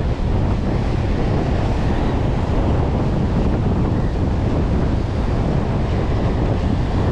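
Surf washing over a rocky shore mixed with wind buffeting the microphone, a steady, loud rush with no breaks.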